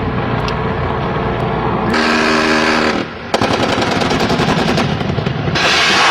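AH-1 Cobra attack helicopter's 20 mm three-barrel rotary cannon firing a rapid burst of gunfire over the helicopter's cabin noise, starting about three seconds in. It follows a steady tone lasting about a second.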